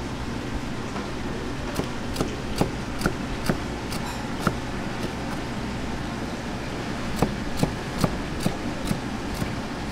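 Large kitchen knife chopping down through gizzard shad fillets onto a cutting board. It makes sharp knocks about two to three a second in two runs, the first from about two seconds in and the second from about seven seconds in, over a steady low hum.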